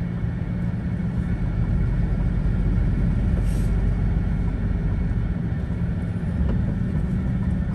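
Steady engine and tyre drone heard from inside a moving vehicle's cabin, a low hum holding an even pace.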